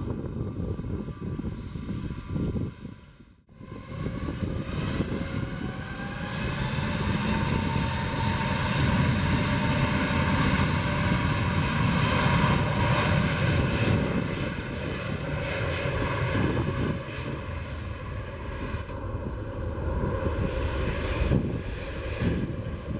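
Airbus A320neo's twin turbofan engines spooling up to takeoff power, a rising whine over a deep rumble, then the steady noise of the takeoff roll as the jet accelerates down the runway toward rotation. The sound dips briefly about three seconds in before the spool-up.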